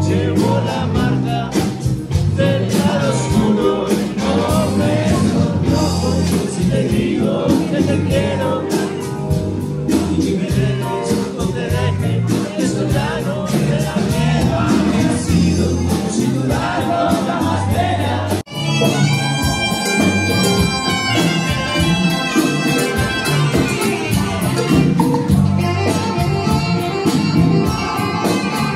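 A live band playing with singing voices. About two-thirds of the way through the sound cuts abruptly to a new passage where an alto saxophone plays a solo over the band.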